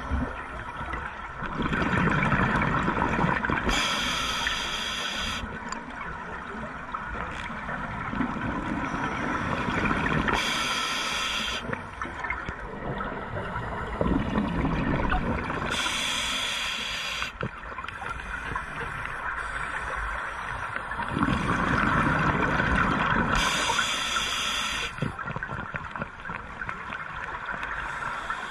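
Underwater scuba breathing through a regulator, heard at the diver's own camera: a short hiss of each inhalation, then a gurgling rush of exhaled bubbles. The cycle comes slowly and evenly, about every six seconds, four breaths in all.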